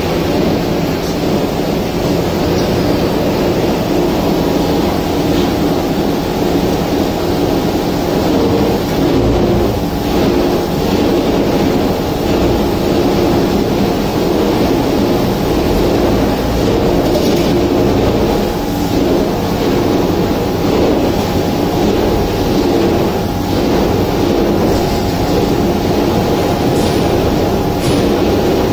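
Steady machinery noise from hydraulic presses, a constant droning hum with a few faint knocks and clanks from pallet handling.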